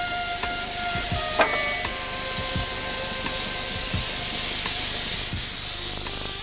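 Steam hissing steadily from the LMS Coronation-class locomotive 46229 Duchess of Hamilton, escaping around the cylinders. Faint steady whistling tones run through the hiss, with a sharp click about a second and a half in.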